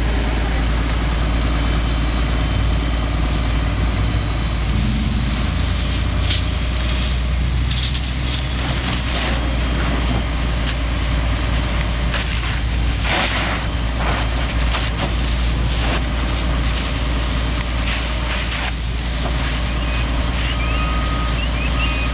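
A heavy vehicle engine running with a steady low rumble. Short hissing bursts come about six, eight and thirteen seconds in.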